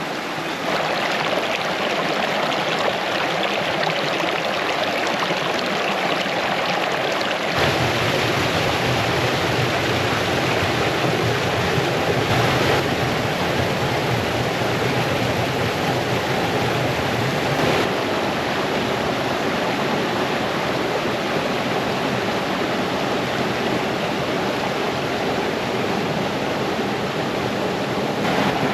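A brook cascading over stones in a steady rush of water. About seven seconds in the rush gets fuller and deeper.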